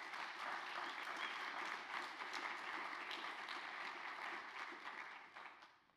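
Audience applauding: a steady spread of many hands clapping that dies away near the end.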